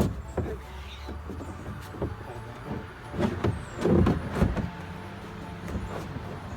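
Knocks and scrapes of molded plastic play-set panels being handled and slid into place, with a cluster of louder knocks about four seconds in. A steady low hum runs underneath.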